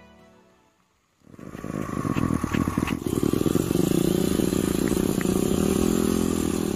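Motorcycle engine running at speed, coming in about a second in and holding a steady pitch.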